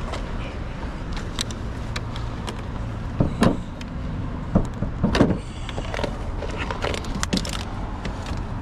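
Scattered clicks and several dull thumps from someone handling parts of a van, over a steady low hum.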